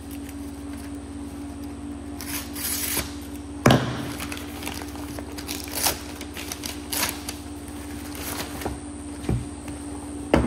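Plastic courier satchel being pulled open and crinkled by hand, with bursts of rustling and tearing, over a steady low hum. A sharp knock, the loudest sound, comes a little over a third of the way in, and another near the end.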